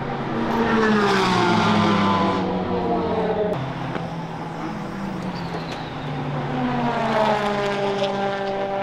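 Race cars going by at speed on the track, each engine note falling in pitch as it passes: one about a second in, another from about seven seconds in.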